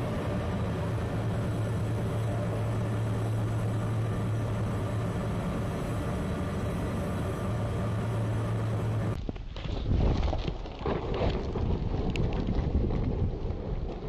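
Steady machinery drone aboard the icebreaker Polar Star, with a low, even hum. About nine seconds in it cuts off suddenly to gusty wind buffeting the microphone out on the sea ice.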